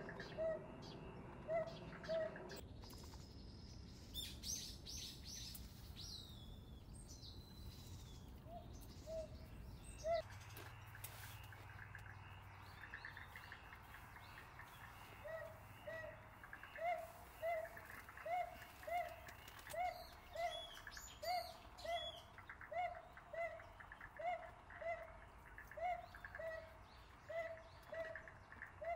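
Wild birds calling: one bird repeats a short, low hooting note about twice a second at the start and again through the second half, with higher, quick chirps from other birds early on in between.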